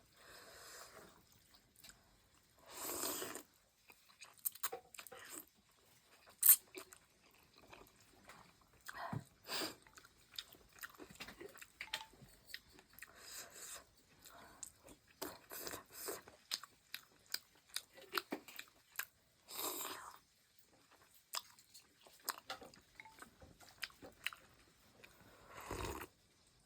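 A person eating noodle soup close to the microphone: quiet chewing with scattered small clicks, and a few short louder noisy bursts about 3, 20 and 26 seconds in.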